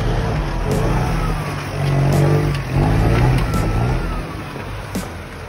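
Mitsubishi L200 pickup's engine revving, its pitch rising and falling, with the strongest surges about two and three seconds in.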